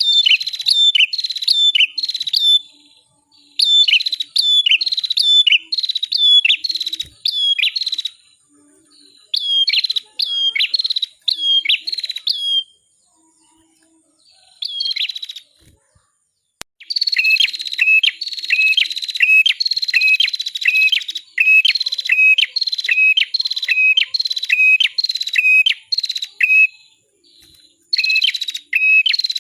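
Small songbird known in Indonesia as prenjak or cimblek kepala merah singing: quick runs of short, sharp chirps, each dropping in pitch, about two to three a second, in bursts of a few seconds with short pauses between them.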